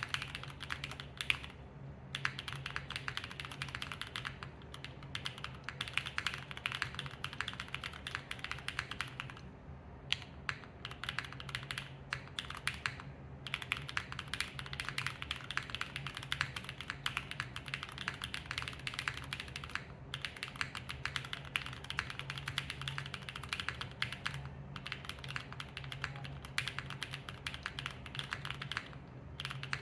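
Continuous fast typing on a plateless Neo80 mechanical keyboard with Gateron Modern Grey switches, ABS GMK keycaps and no foam, a dense run of keystroke clacks broken by a few brief pauses.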